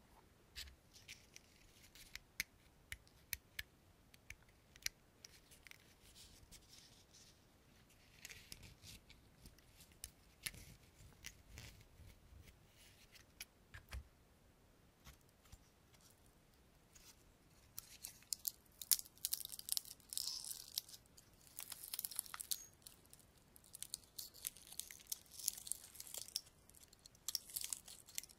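Pinecone scales being scratched and rubbed: scattered soft clicks and scratches at first, turning to denser crackling scratches after about eighteen seconds.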